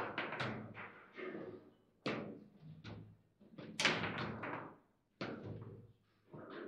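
Table football (foosball) in play: the ball is struck by the rod-mounted players and knocks off the table. Sharp knocks come about every second and a half, each fading out over about a second.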